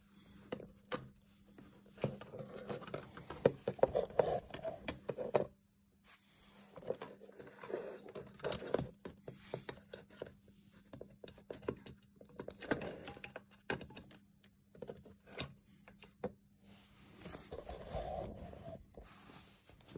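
Handling noise from the plastic case of a plug-in watt meter being held, turned and shifted on a wooden table: irregular clusters of clicks, knocks and rubbing, with quiet gaps between. A faint steady hum runs underneath.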